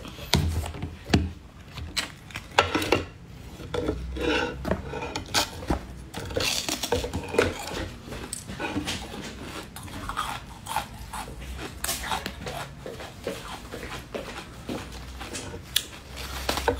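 A soft silicone mould being worked and peeled off a bear-shaped dessert, with the dessert and mould handled against a bamboo cutting board: irregular taps, knocks and rubbing.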